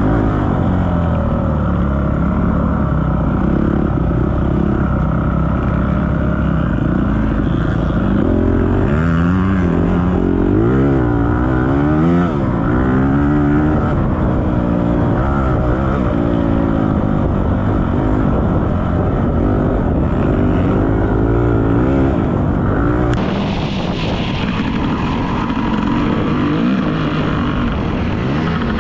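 Dirt bike engine revving up and down repeatedly as the bike is ridden hard along a track. About 23 seconds in, the sound changes abruptly, as at a cut to another bike.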